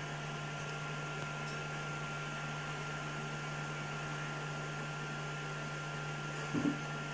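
Steady low hum and hiss of a small room, with a faint thin high whine throughout and one brief faint sound about six and a half seconds in.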